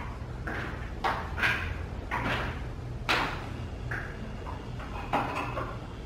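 Footsteps of spiked shoes on a wet, freshly clear-coated epoxy garage floor: a string of short, irregular steps, about one to two a second.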